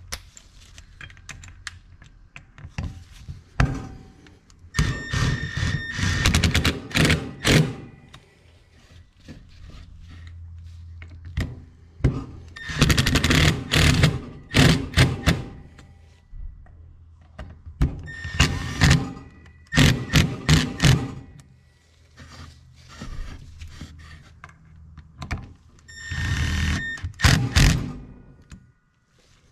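Impact driver hammering the Phillips screws down into a 1970 Honda CT90 clutch housing, in four bursts of a few seconds each, tightening the screws snug.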